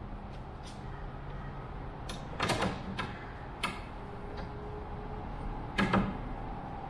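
A few sharp knocks and clicks of bolt and bracket hardware being handled and worked into the aircraft's landing-gear brackets, left loose until the bolts are in. The loudest cluster comes about two and a half seconds in and another near six seconds.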